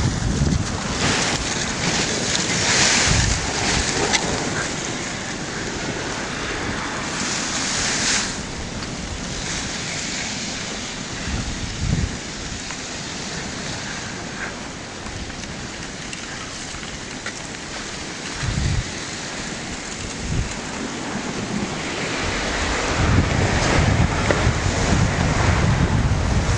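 Drifting river ice floes and slush ice rubbing and grinding against one another, a continuous rustling hiss that swells louder a second or two in and again about eight seconds in. Wind rumbles on the microphone near the start and again near the end.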